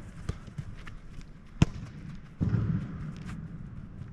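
Footballs being kicked: a sharp, hard thud of a ball strike about one and a half seconds in, with a fainter strike near the start.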